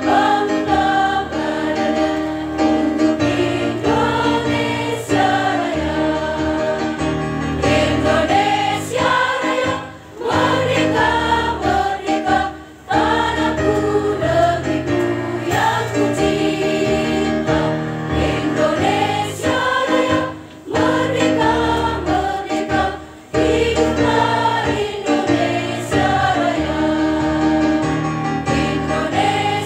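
Women's choir singing together in sustained phrases, with short breaks between phrases, over low accompanying bass notes that step from one to the next.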